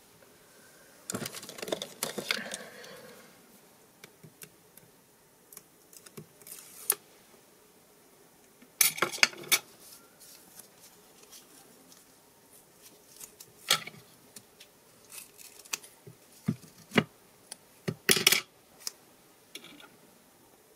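Foam adhesive tape and a paper strip handled on a cutting mat: the tape pulled off its roll and pressed down in layers, with a longer rustling scrape near the start and scattered sharp clicks and rustles after it.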